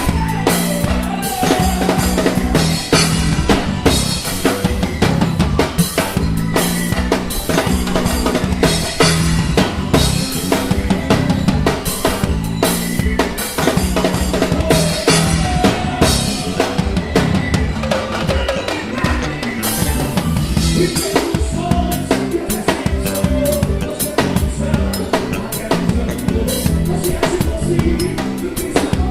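Drum kit playing a steady groove with a band: bass drum, snare and rimshot hits throughout, over a bass line and other melodic instruments.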